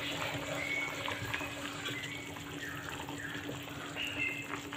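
Vegetable curry bubbling steadily in a clay pot on a gas burner, with a steady low hum underneath.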